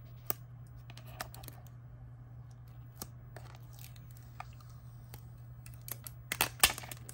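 A thermal-paper label sticker being peeled from its backing and handled: scattered small clicks and rustles, then a louder burst of tearing and crinkling near the end.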